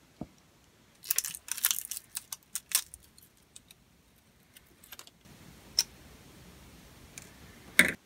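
Support material being picked and snapped off a freshly 3D-printed black PETG knob by hand: a quick run of small, sharp plastic clicks and crackles about a second in, then scattered single clicks, with a louder snap near the end.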